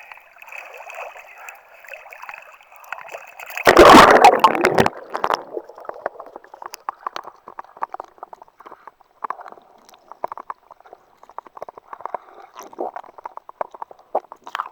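Sea water sloshing and splashing around a swimmer, with one loud splash about four seconds in, followed by quieter gurgling and scattered clicks in the water.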